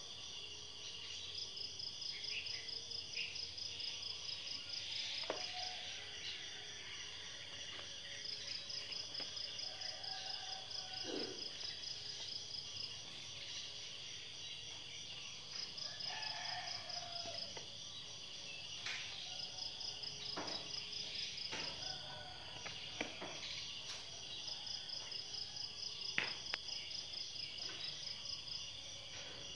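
Insects trilling steadily, with a higher, rapidly pulsing trill that comes and goes in bouts of a few seconds. A few brief knocks and clicks now and then.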